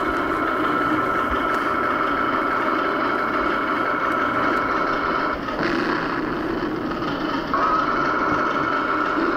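Radio-controlled model flying wing's jet engines running with a steady high whine over a rushing noise as it passes overhead. The whine drops out about five and a half seconds in and comes back about two seconds later.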